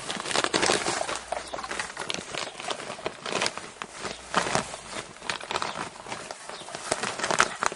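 Plastic sheeting crinkling and rustling as a dog tugs and bites at it, with straw rustling under its paws: an irregular run of crackles.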